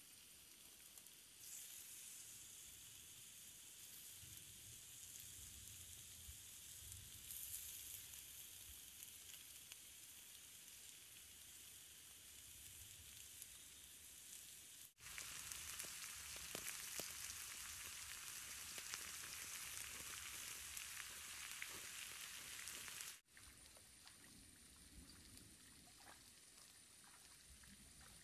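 Pork slices sizzling as they fry on a hot flat stone over a wood fire: a steady, faint hiss with occasional pops. It breaks off suddenly twice, and after the second break only a fainter background remains.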